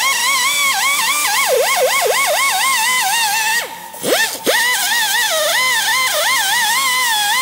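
Air-powered right-angle die grinder with a small disc grinding down a TIG weld on steel sheet metal: a high whine whose pitch sags each time the disc bites into the metal and climbs back as the load eases. A little past halfway it lets off briefly, winding down, then spins back up and carries on grinding.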